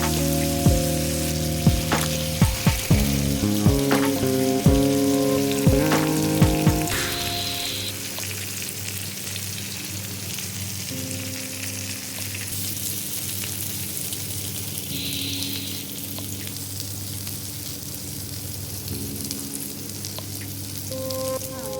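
Boneless chicken frying in hot oil, a steady sizzle, with background music over it. Sharp knocks come through during the first several seconds.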